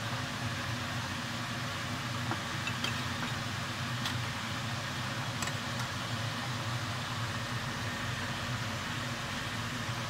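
Eggplant halves frying in a pot of hot oil: a steady sizzle and bubbling over a low steady hum, with a few light clinks of a metal spoon against the pot a few seconds in.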